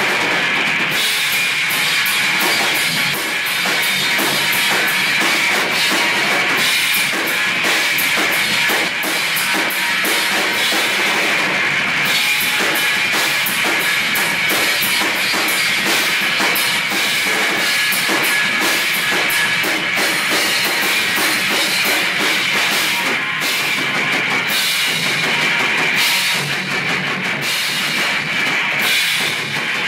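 Live rock band playing loudly, with electric guitars and a drum kit whose cymbals and drums strike throughout, without a break.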